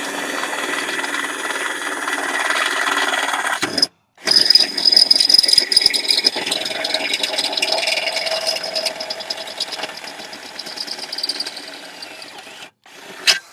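Power drill running as it bores a bolt hole through a wheelbarrow handle: a loud, steady motor whine and grinding of the bit in the wood. It stops briefly about four seconds in, starts again and runs for most of the rest, getting quieter toward the end, then one short last burst.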